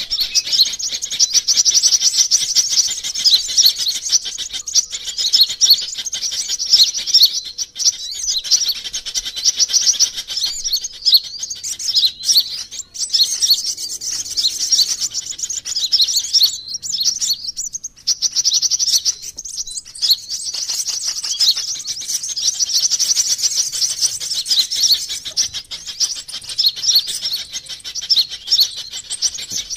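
Sunbird lure recording: dense, rapid high-pitched chirps and trills, nearly continuous, with short breaks near the middle.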